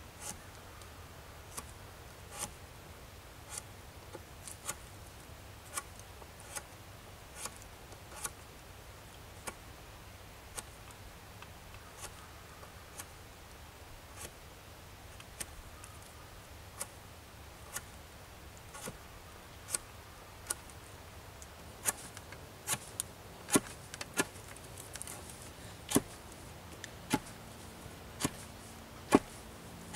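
A knife whittling a wooden branch: short, sharp cutting strokes, about one a second, growing louder about two-thirds of the way through.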